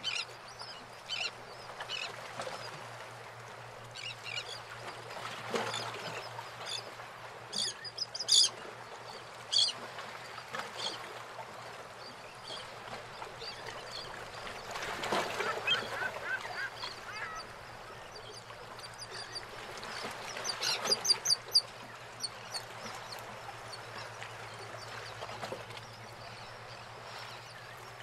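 Harbour water lapping and slapping against the hulls of moored fishing boats, swelling and fading in waves. Short bird calls break in several times, with a quick run of them about three-quarters of the way through.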